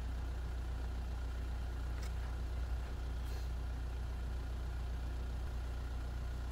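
Steady low hum of a running engine, unchanging throughout, with a couple of faint light ticks about two and three seconds in.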